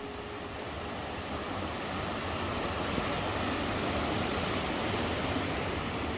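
Steady rushing of a stream's flowing water, swelling slightly over the first couple of seconds.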